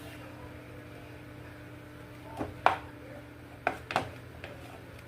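Kitchenware being handled: four short sharp knocks and clicks in the middle, the second the loudest, over a steady low hum.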